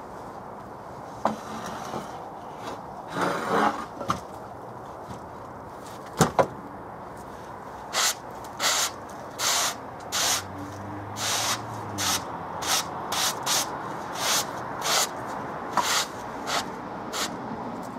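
Gloved hands brushing sawdust off the freshly chainsaw-milled surface of a copper beech log: a run of quick scraping swipes, about one or two a second, starting about eight seconds in. Before that come a few knocks as the wooden guide boards are lifted off the log.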